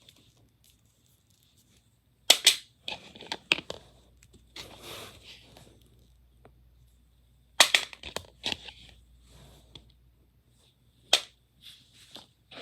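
Plastic surprise eggs being handled, with three sharp cracks about two, seven and a half and eleven seconds in, and rustling and clatter between.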